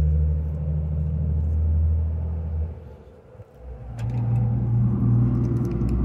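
Steady low hum of an idling truck engine. It fades out for about a second midway and comes back at a slightly higher pitch, with light clicks from tape and wires being handled over it.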